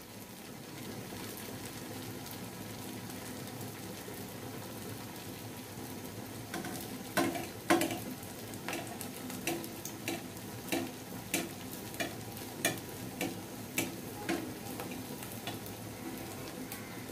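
A single rui fish kabab frying in hot oil in a pan, a steady sizzle. A third of the way in, a metal spatula starts tapping and nudging it in the pan, making a run of sharp clicks about twice a second that stops shortly before the end.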